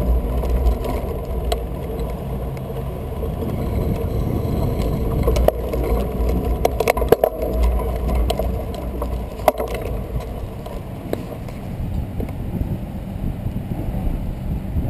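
Road bike being ridden on a paved path: a steady low rumble of riding noise, with a few sharp knocks and rattles around the middle.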